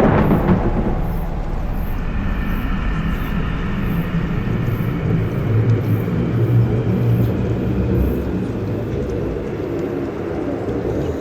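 Eerie drone sound effect: a sharp hit at the very start, then a low rumble that swells in the middle, with a thin higher tone above it for several seconds.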